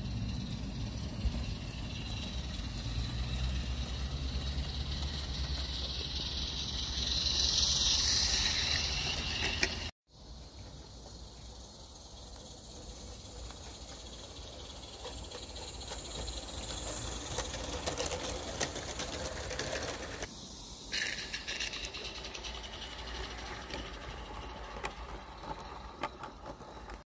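Small garden-railway trains running on outdoor track: a steady mechanical rattle from the locomotives and carriages, with one steaming small live-steam locomotive among them. The sound drops out briefly about ten seconds in, then the rattle resumes with finer ticking.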